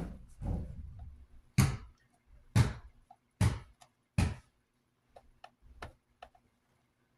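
Handling noises on a work surface: a series of sharp knocks and taps, five louder ones in the first four seconds, then lighter clicks.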